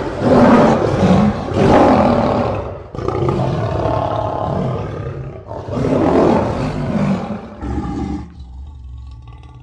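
Lion roar sound effect: three long, loud roars one after another. A shorter, quieter sound follows near the end.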